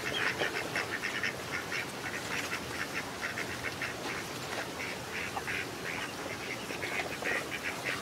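A flock of whistling ducks calling: a continuous chatter of many short, overlapping high calls over a steady hiss.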